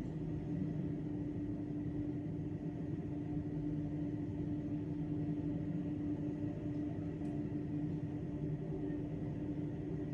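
Steady low rumbling drone with a constant low hum, the background sound of a railway station.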